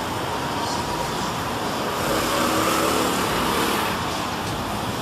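Street traffic, with a car passing close by: its engine and tyre noise grow louder about two seconds in and fall away again near the end.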